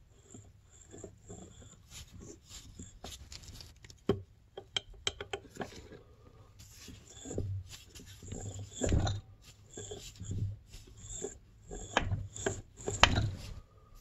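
Crankshaft of a 2002 Arctic Cat ZR 800 two-stroke engine being turned by hand in its main bearings in the split crankcase: a gritty rasping with irregular clicks and a few dull knocks. The inner main bearings are thought to be done, running rough rather than smooth.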